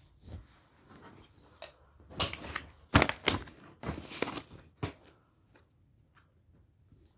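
Fidget toys in plastic packaging being handled and set down: a cluster of knocks and clicks mixed with crinkling, bunched in the middle few seconds.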